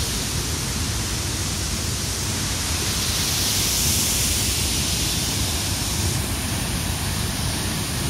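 Mountain stream and waterfall rushing steadily, a continuous roar of water.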